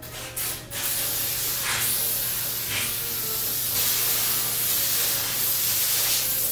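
Aerosol spray can hissing: a couple of short spurts, then one long continuous spray that cuts off abruptly.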